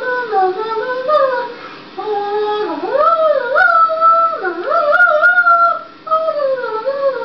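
A person's wordless, dog-like vocalizing for a Snoopy puppet: sliding, howl-like notes that swoop up and down in several phrases, with short breaks about two seconds in and near the end.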